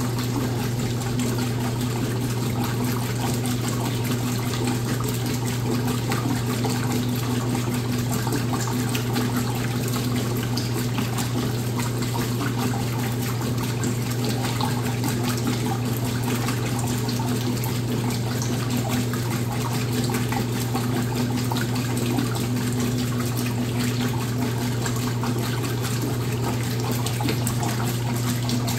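Washing machine with water running in it: a steady rush of water over a low, even hum that does not change.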